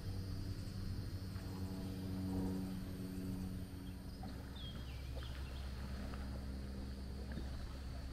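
Outdoor ambience: the low hum of a distant engine, loudest about two to three seconds in and easing after about four seconds, over a steady high insect drone, with a few short bird chirps about four to five seconds in.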